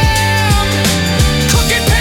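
Instrumental music: a steady beat of deep drum hits that drop sharply in pitch over a sustained bass, with a long held high note that ends about half a second in.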